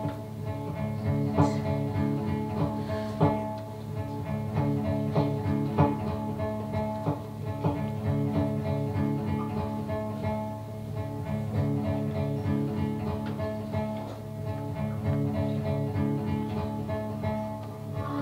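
Live acoustic string music: plucked notes sounding over held, sustained tones.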